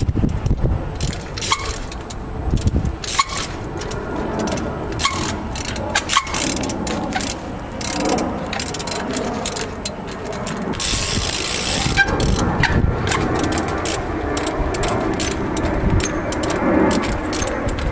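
Trials bike riding on rock: the freewheel ratchet clicking, with sharp knocks of tyres and pedals hitting stone as the bike is hopped. A brief hiss comes about eleven seconds in.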